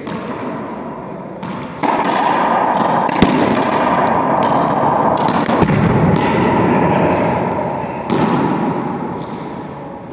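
Racquetball rally: the ball cracks sharply off racquets and the court's walls and floor again and again, each hit echoing in the enclosed court. The play gets louder about two seconds in and dies away near the end.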